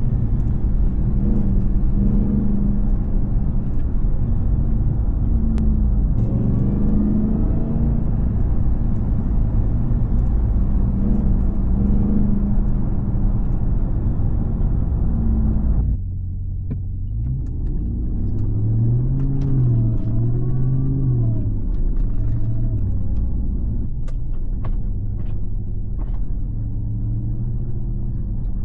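2022 Ram TRX's supercharged 6.2-litre Hemi V8 and SLP-resonator exhaust droning steadily while driving, over road rumble. About halfway through the sound changes abruptly to a lower engine note that rises and falls in pitch several times as the truck speeds up and eases off.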